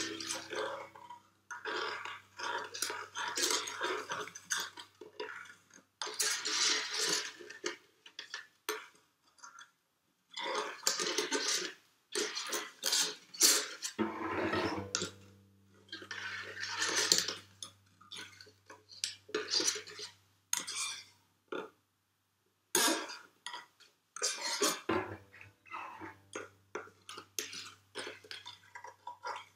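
A small object worked against a cardboard gift box, making irregular scratchy, rattling strokes in short runs with brief pauses. A steady low hum comes in under it about halfway through and again near the end.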